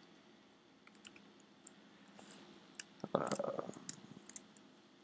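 Faint, scattered computer keyboard taps and mouse clicks as a title is typed and a text field is clicked into, with a brief muffled sound about three seconds in.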